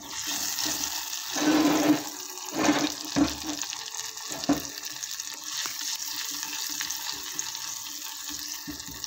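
Garlic and green chili paste frying in oil in a clay pot, a steady sizzling and bubbling. It swells louder several times as a silicone spatula stirs it, most strongly about one and a half to two seconds in.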